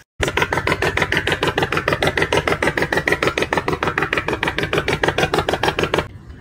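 Fishing boat's engine running with a fast, even knocking, about eight to nine knocks a second over a steady low rumble, stopping abruptly near the end.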